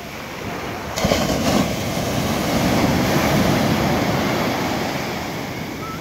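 Surf on a sandy beach: a wave breaks about a second in and its foam rushes up the sand, then the wash eases off toward the end.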